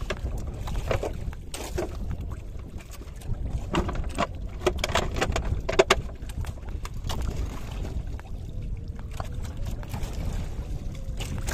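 Wind rumbling steadily on the microphone aboard a small fishing boat, with scattered knocks and splashes of water.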